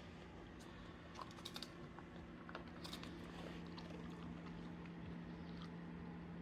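A dog eating from a pup cup: faint, irregular licking and chewing clicks over a steady low hum.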